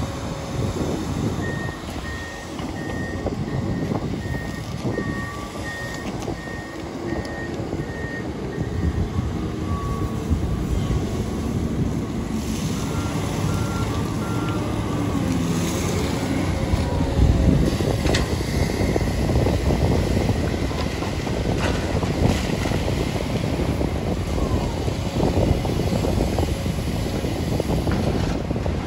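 Diesel tracked excavators and a site dumper working, engines running throughout with the rumble growing louder past the halfway point. A reversing alarm beeps steadily about once a second for several seconds near the start, and a second, lower-pitched alarm gives three beeps about halfway.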